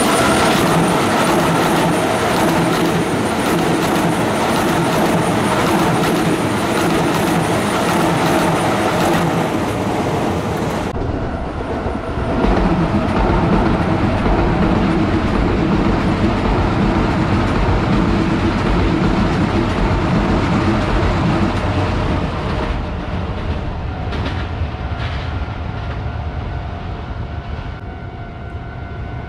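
Keisei Oshiage Line trains running close by on a curve: loud, continuous wheel-on-rail and traction noise. The sound changes suddenly about eleven seconds in, its hiss dropping away while the rumble stays loud, and it fades over the last several seconds.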